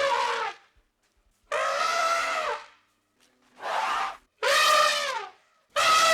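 An animal bleating five times in a row, each call about half a second to a second long, dropping in pitch at the end.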